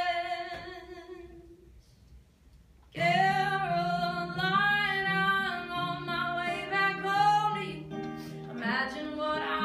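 A woman singing live to her own acoustic guitar. A held note fades out, there is a short pause, and about three seconds in the voice and guitar come back in together and carry on.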